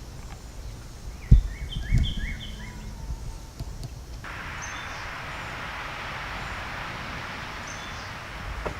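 Outdoor ambience: a bird chirps a quick run of short repeated notes, overlapping two dull thumps, then a steady rushing noise sets in abruptly about four seconds in and holds.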